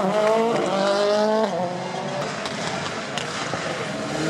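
Rally car engine revving hard, its note climbing for about a second and a half before it lifts off sharply, followed by a quieter stretch of engine and tyre noise.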